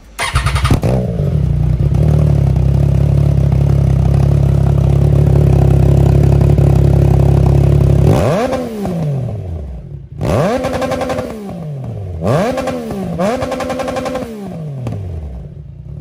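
Motorcycle engine running through a newly fitted SARD aftermarket exhaust. It comes in suddenly and idles loud and steady, then from about eight seconds in it is blipped four times, each rev rising sharply and falling back toward idle.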